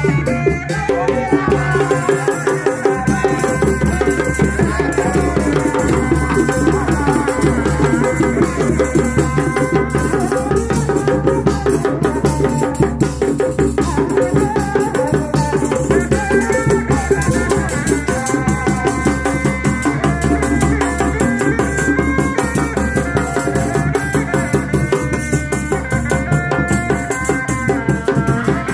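Reak ensemble playing: dogdog hand drums and a large frame drum beating a fast, dense rhythm without pause, under a wavering melody line.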